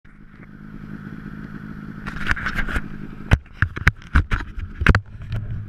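Turbocharged Arctic Cat M8 snowmobile's two-stroke engine idling steadily, with a series of sharp knocks and scrapes between about two and five seconds in as the camera is handled and turned.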